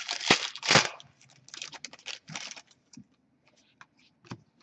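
The shiny wrapper of an Upper Deck SPx hockey card pack being torn open by hand: two loud rips within the first second, then crinkling and small clicks that thin out over the next couple of seconds.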